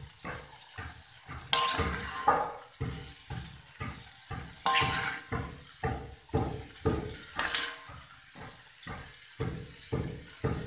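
Hot oil sizzling in a wok as fried red chillies, shallots and garlic drain on a perforated metal skimmer, with a regular run of dull thumps about two a second.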